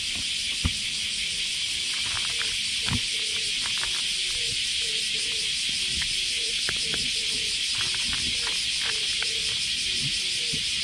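A cat crunching dry kibble from a paper bowl right beside the microphone, in irregular crunches and clicks. Under it, a steady high drone of summer cicadas.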